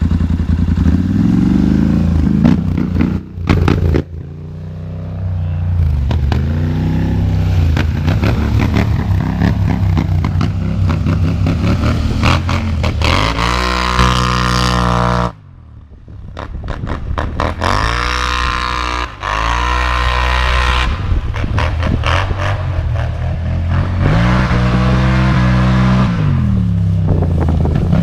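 Polaris Scrambler 1000 XP ATV's twin-cylinder engine and exhaust revving up and down repeatedly as it accelerates hard, riding away and back. The engine note drops off sharply about three seconds in and again about halfway through, then climbs again.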